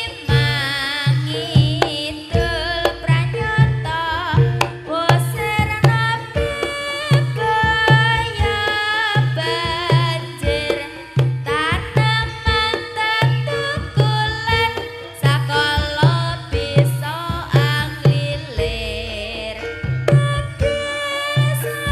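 Reog Kendang ensemble music: small kendang hand drums beat a steady, quick rhythm of low strokes under a high, wavering melody that bends up and down in pitch.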